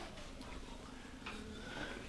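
Quiet room tone with a few faint, soft movement noises and no distinct strikes.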